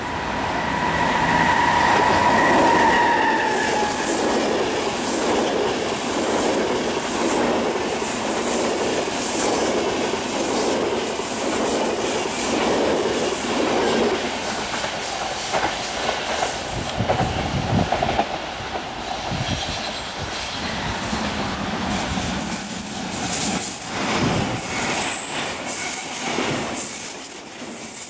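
SBB Re 460 electric locomotive and double-deck coaches passing close at speed: a steady wheel and running rumble with regular clacks of the bogies over rail joints, and high-pitched wheel squeal in the last few seconds.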